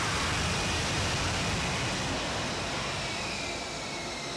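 F-35B jet engine and lift fan running at high power during a hovering vertical landing: a steady, rushing jet noise with a faint thin whine above it that slides slowly down in pitch near the end as the level eases off.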